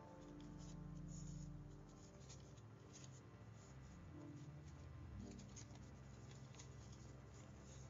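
Faint rustling and crinkling of folded paper as a cut paper snowflake is opened out by hand, a scatter of small crackles.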